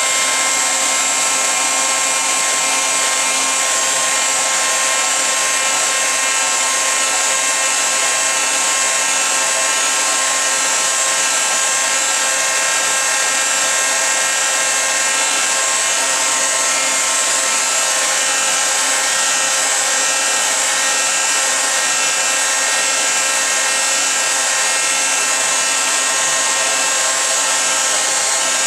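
A small motor-driven blower running steadily, with a strong airy hiss over a constant whine.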